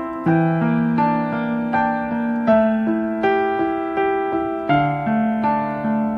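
Background music: a piano-like keyboard playing an even, unhurried melody of sustained notes.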